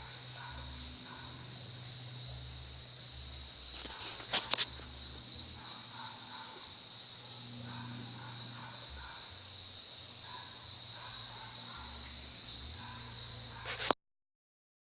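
Steady chorus of insects, a continuous high-pitched buzz with a faster pulsing note above it. Two sharp clicks come about four and a half seconds in, and near the end a click is followed by the sound cutting off suddenly.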